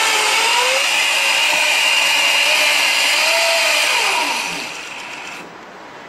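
Electric scooter motor driving the rear wheel through its chain and pressure sprocket: a loud whirring run whose pitch rises and falls a little, winding down about four and a half seconds in and cutting off about a second later. It is a test run to check the freshly aligned pressure sprocket.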